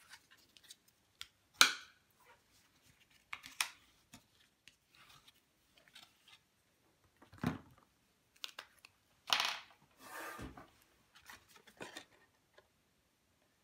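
Thick paper being folded and creased into a box shape: scattered rustles and short crackles as the flaps are bent up and pressed down, the loudest about a second and a half in and again around nine to ten seconds in.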